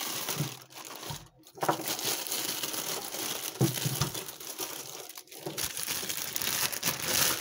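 Clear plastic packaging bag crinkling and rustling as it is handled, with short breaks about a second in and about five seconds in.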